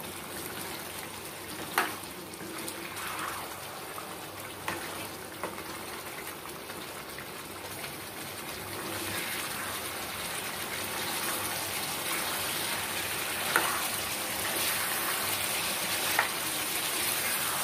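Chicken and potato curry bubbling and sizzling in a pan as its gravy cooks down, stirred with a spatula. A few sharp knocks of the spatula hit the pan, and the bubbling grows gradually louder.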